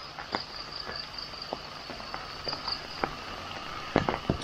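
Insects chirring in a steady high drone that fades out about three seconds in, with scattered soft clicks and a couple of louder knocks near the end.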